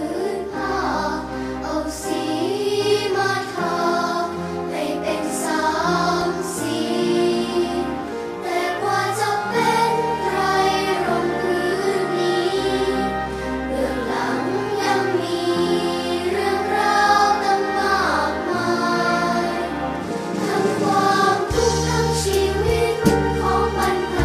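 A choir of children singing a song in unison over instrumental accompaniment.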